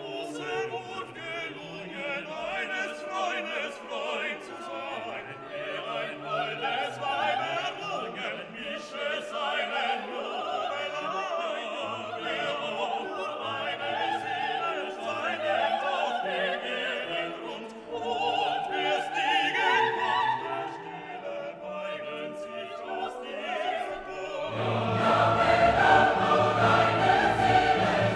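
Background classical music: operatic singing with choir and orchestra, growing fuller and louder near the end.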